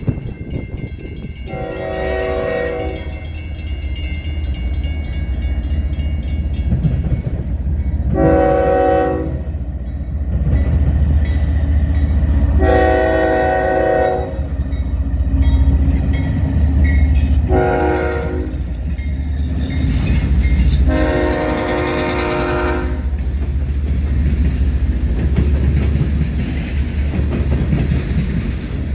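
CSX freight train passing, its diesel locomotives running with a steady low rumble while the lead unit's air horn sounds five blasts: three long, one short, one long, the last four in the long-long-short-long pattern sounded for a grade crossing. After the horn stops, the rumble and clack of tank car wheels on the rails carry on.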